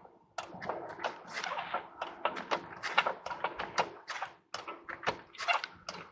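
Rapid, irregular metal clicks and knocks of wrenches and a floor jack being worked against a rusted shock absorber mounting bolt to break it loose.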